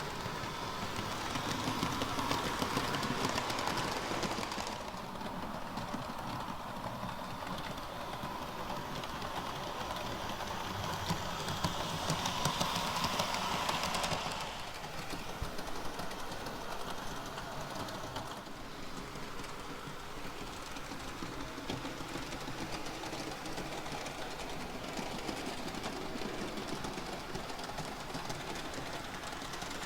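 HO-scale Bachmann model train running on its track: a steady electric-motor hum with wheels clicking over the rails. It grows louder twice as the train passes close by.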